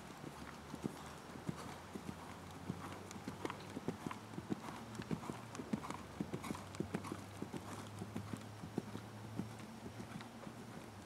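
Hoofbeats of a ridden horse moving briskly over sand arena footing: a quick, uneven run of soft thuds, several a second.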